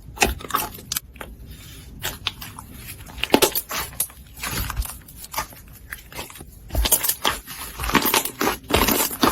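Slime being squeezed and worked by hand, giving irregular crackles, pops and squelches that grow busier near the end.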